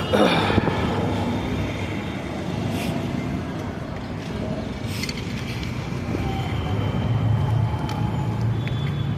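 Motor vehicle noise: a steady low hum with a falling sweep at the very start and a few sharp clicks about three and five seconds in.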